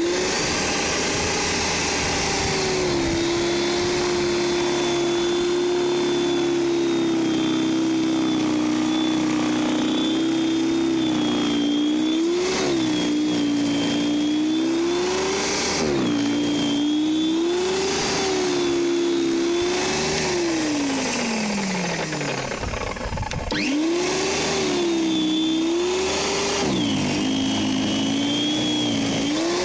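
Stiga Snow Flake 1800 W electric snow thrower running as it clears snow: its motor whine sags in pitch and recovers several times as the auger bites into the snow. About twenty seconds in the whine winds down, and the motor starts up again a couple of seconds later.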